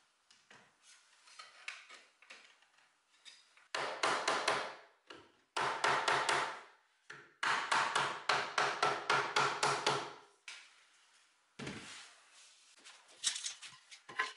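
A rubber mallet tapping the wooden chair frame to drive the rail-to-leg joints home. After a few light handling knocks come three bursts of quick, sharp blows, about four a second, with the longest burst lasting close to three seconds. A few single knocks follow near the end.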